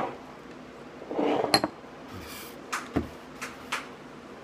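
Glass bowl clinking and being set down on a table: one sharp ringing clink, a few light knocks and a dull thump.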